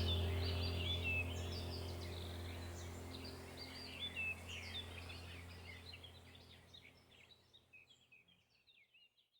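Recorded birdsong ambience, many small birds chirping over a low steady hum and a few held tones, all fading out to silence about seven seconds in.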